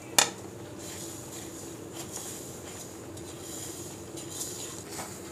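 One sharp clink of the ceramic plate against the pan's rim, then a soft, steady rustling hiss as dry fried bread crumbs slide off the plate into the thick hot milk.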